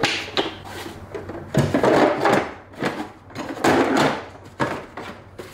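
Blow-molded plastic tool cases and tools being moved about in a toolbox drawer: a run of scraping, clattering handling noises, loudest about two and four seconds in.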